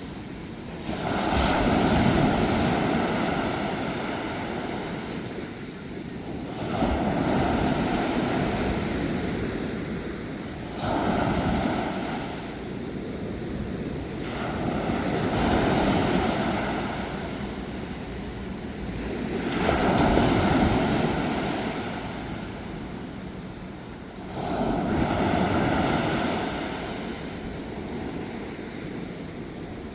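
Ocean waves breaking and washing up the shore, a new wave surging in about every four to five seconds and then fading away.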